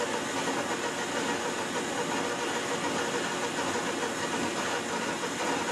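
Clausing Colchester 13-inch metal lathe running steadily, spinning a long, heavy steel shaft; an even mechanical noise with no changes in speed or load.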